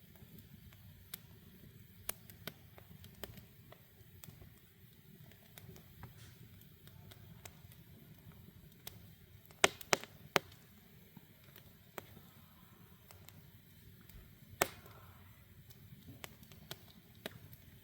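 Wood campfire of black cherry, balsam fir and maple crackling, with scattered sharp pops throughout, a quick cluster of three louder pops a little past halfway and another loud pop a few seconds later, over a low steady rumble.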